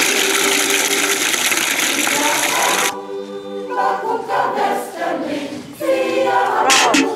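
Beer gushing from a hand-operated water pump and splashing, cut off suddenly after about three seconds. Then a choir sings sustained chords.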